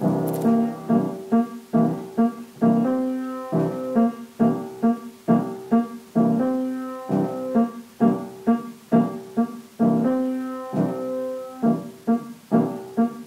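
Piano music: single notes and chords struck one after another at a moderate pace, each ringing out and fading.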